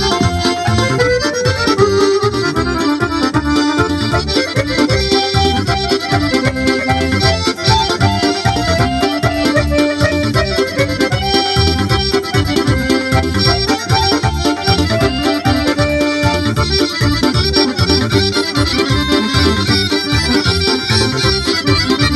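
Live piano accordion playing a melody over a Korg arranger keyboard's backing, with a steady beat.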